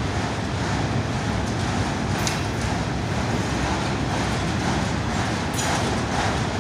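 Freight train of autorack cars rolling past close by: a steady rumble of steel wheels on the rails, with a brief high squeak about two seconds in and another near the end.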